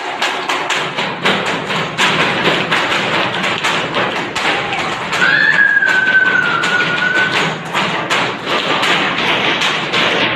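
Rapid, irregular knocking and tapping on classroom desks, going on without a break. A little past the middle, a single high tone is held for about two seconds, falling slightly.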